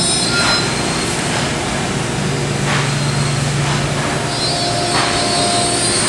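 Steady roar of running machinery, with a few high steady tones over it and a low hum that comes in about two seconds in and drops out around four seconds.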